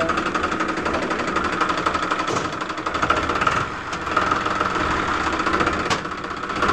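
Steady, fast-rattling tractor engine noise that accompanies a small toy tractor pulling a loaded trailer.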